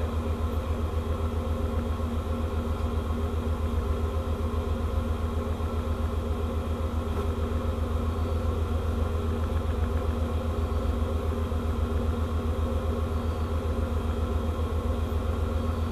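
Ship's engine machinery running steadily: a low drone with a fast, even throb.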